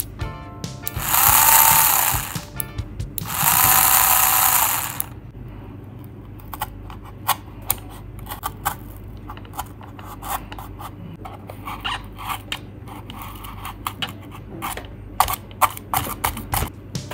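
Two small DC gear motors on a cardboard model train bogie whirring in two bursts, driven through a knob-type motor speed controller, the pitch of the first burst rising and then falling as the speed is turned up and back down. From about five seconds in, a utility knife scoring and cutting cardboard, a quick run of short sharp clicks and scrapes.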